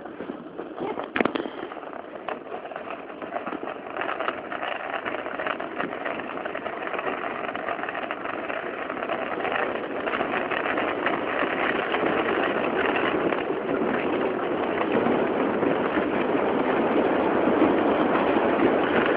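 Small waveboard wheels rolling fast on an asphalt road downhill, a rough, steady rolling noise that grows louder as speed builds. A couple of sharp knocks come about a second in.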